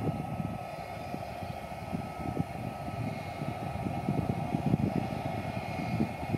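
Airbus airliner's jet engines running with a steady whine over an uneven low rumble as the plane rolls slowly along the runway.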